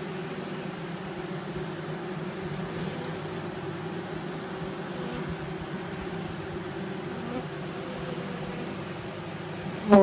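Honeybees from a freshly installed package buzzing steadily over the hive's top bars. Just before the end a single bee flies close past the microphone, a brief loud buzz.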